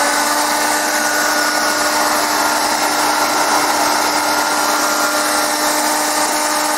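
AEG Ergorapido LI-35 18 V cordless stick vacuum running steadily: a motor whine at a constant pitch over the rush of air. This is a test run with its turbo-brush wiring plug reconnected, and it keeps running.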